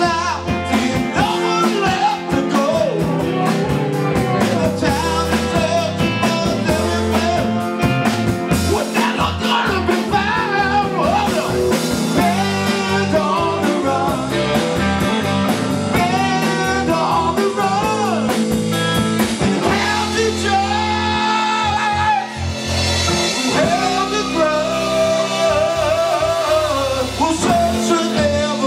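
Live rock-and-blues band playing: electric guitar, electric bass guitar and drum kit, with a man singing lead.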